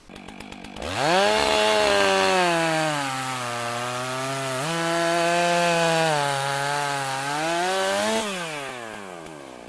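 Chainsaw engine running at high revs, as if cutting wood: it comes in about a second in with a fast rise in pitch, steps up and back down in the middle, then falls in pitch and dies away near the end.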